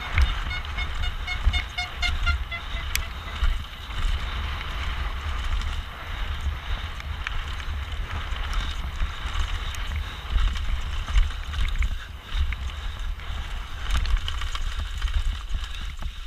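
Mountain bike descending a rough race trail, heard from an action camera riding with it: wind buffeting the microphone, with the bike rattling and knocking over the ground and sharp knocks from impacts. A pulsing squeal runs through the first three seconds or so.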